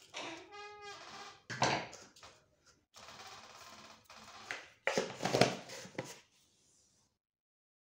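Wooden spoon squeaking and knocking against a stainless steel pot of raw chicken, then salt sprinkled onto the chicken with a soft steady hiss, followed by a quick run of clicks and knocks about five seconds in.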